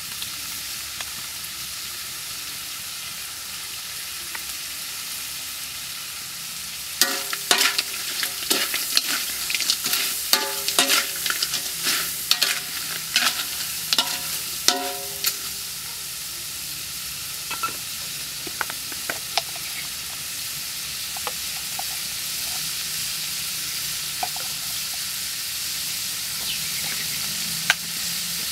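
Small whole crabs frying in a wok with a steady sizzle. From about seven seconds in to about fifteen, a metal spatula stirs them, clanking and scraping against the wok with a short ringing on each stroke; after that only a few scattered clicks sound over the sizzle.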